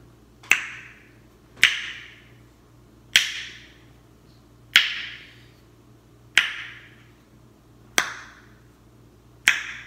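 A series of seven sharp snaps or claps, evenly spaced about a second and a half apart, each with a short ringing tail in the room.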